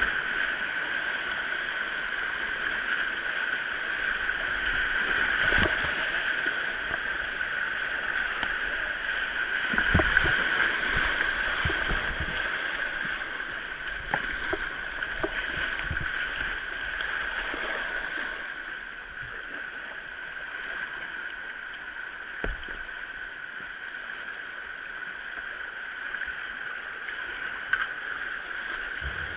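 Steady rushing of a mountain stream, with scattered short knocks in between. It eases slightly about two-thirds of the way through.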